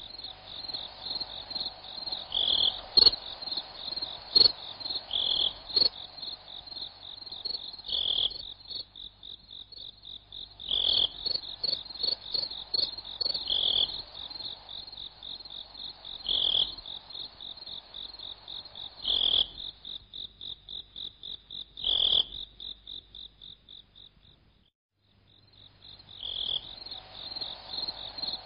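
Crickets and frogs calling: a steady, high pulsing trill, a louder call about every three seconds, and short croaks in between. It all stops for about a second near the end, then starts again.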